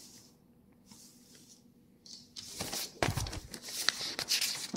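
A hush with a faint steady hum, then, about two and a half seconds in, irregular rustling and handling noises close to the microphone, with a few soft thumps.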